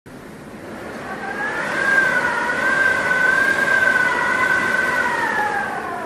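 Cyclone-force wind howling with a high, wavering whistle over a rushing noise. It swells over the first two seconds, and the whistle's pitch sinks near the end.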